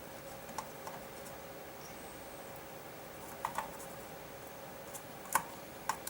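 Scattered light clicks and taps of a soldering iron and hand tools against an amplifier circuit board while a capacitor lead is being soldered, a pair about halfway through and the sharpest near the end, over a faint steady hum.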